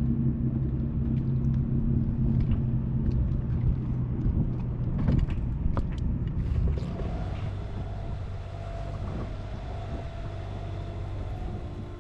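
Boat engine running with a steady low hum; about seven seconds in the pitch of the hum changes and it gets a little quieter.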